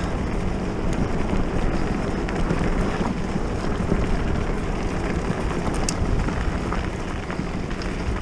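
Wind buffeting the microphone on a very blustery day: a steady low rush of wind noise.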